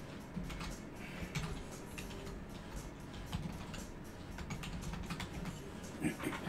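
Typing on a computer keyboard: irregular key clicks, with a few louder clicks near the end.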